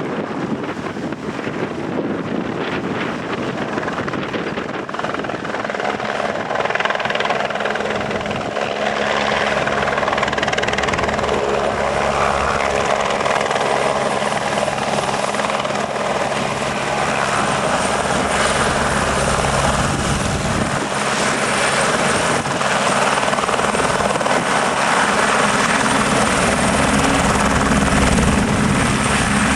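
Eurocopter AS350 helicopter running, its single turbine engine and rotor growing gradually louder, with a thin high turbine whine over a steady low drone.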